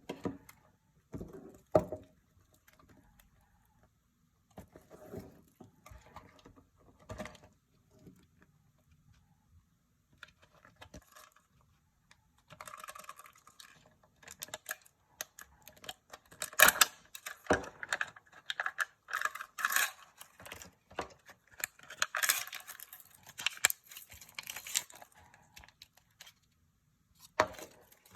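Hands unpacking a surprise egg: scattered plastic clicks and taps, then dense wrapper crinkling from about twelve to twenty-five seconds in, with one more click near the end.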